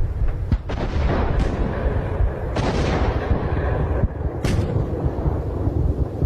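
Distant First World War artillery and gunfire: several sharp reports over a constant low rumble, the loudest about two and a half seconds in. It is the front-line sound of the last shots fired before the armistice of 11 November 1918.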